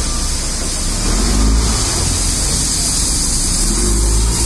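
Backhoe loader's diesel engine running with a heavy low rumble, its pitch rising near the end as it revs.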